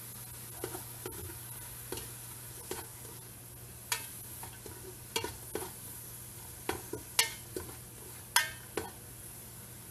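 A utensil scraping and knocking against the metal pressure-cooker pot as garlic, onion and ginger are stirred in hot oil, a dozen or so irregular strokes over a faint steady sizzle.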